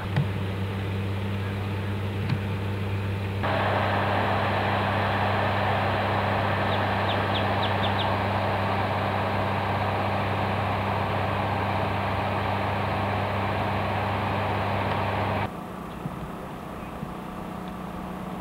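Steady low hum like an idling motor, under a hiss of outdoor background noise. The hiss jumps louder about three seconds in and drops back near the end, when the lowest part of the hum stops.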